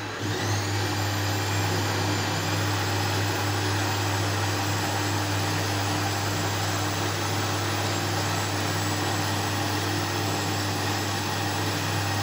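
Electric grinder with a tall stainless-steel jar running steadily, pulping soaked dried apricots, dried plums and tamarind: a constant low motor hum under a dense whirring rush.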